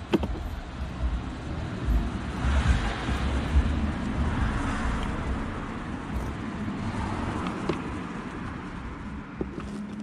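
Road traffic going by: a vehicle's rumble and tyre noise swells over a few seconds and fades, with a smaller swell later. A few light clicks come from a screwdriver turning screws in a plastic air filter housing.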